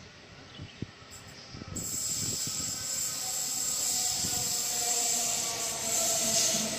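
Sydney Trains A-set (Waratah) electric train arriving at a platform. About two seconds in, its approach gets much louder: rail and wheel noise with a steady electric whine from the traction equipment, growing as the train nears.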